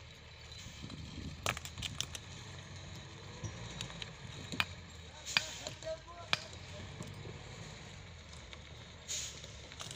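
Low, steady rumble of a ten-wheeler truck's engine moving slowly under the load of an excavator, with several sharp knocks and clicks close by.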